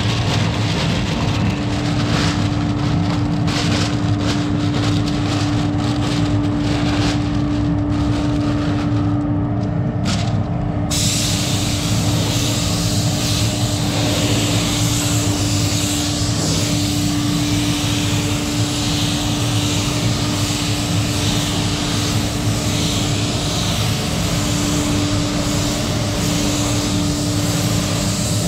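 Gravity-feed spray gun spraying a thin coat of primer: a steady hiss of compressed air that starts suddenly about eleven seconds in and runs on. Before it, masking paper rustles under handling, and under everything runs a steady low machinery hum with one constant tone.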